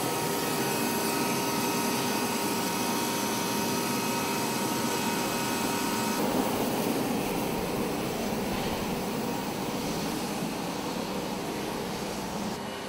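Turbine engine of a V-22 Osprey running steadily on the ground: a constant rush with a thin high whine over it. The whine drops out about halfway through, leaving the rush.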